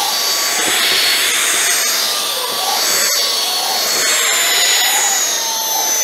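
Cordless stick vacuum running with its motorized carpet roller head, a steady high-pitched motor whine over rushing air, as it sucks up thick cross-cut paper confetti from a rug. A couple of short sharp clicks come through about halfway in.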